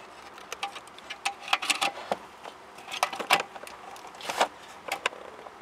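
Plastic multi-pin wiring-harness connector clicking and scraping against the aluminium case of a BMW top hi-fi amplifier as it is offered up and turned to find the one way it fits. It makes a run of irregular sharp clicks and rattles, loudest about two, three and four seconds in.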